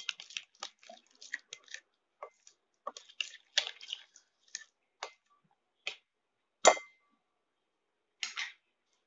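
A spoon stirring a thick curd-and-spice marinade in a glass bowl: irregular wet squelches and quick scrapes against the glass. About two-thirds through comes one sharp knock with a short ring, and a brief scrape follows near the end.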